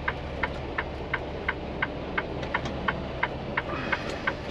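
Semi truck's diesel engine idling low inside the cab, with a flasher relay ticking steadily about three times a second.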